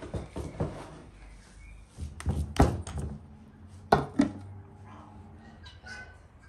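Raw minced meat being kneaded by gloved hands in an enamel basin: wet squelches and slaps, with heavy thumps about two and a half and four seconds in.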